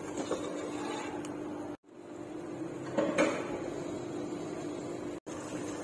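Beef, yogurt and spice masala sizzling as it fries in an aluminium pressure-cooker pot, stirred with a wooden spoon, over a steady low hum, with a knock about three seconds in. The sound cuts out twice, briefly.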